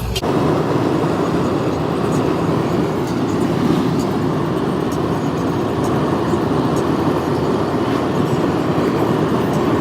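Steady road and wind noise inside a car driving at highway speed.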